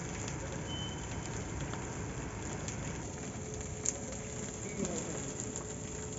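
A street bonfire burning: a steady hiss with scattered crackles and one sharper pop about four seconds in.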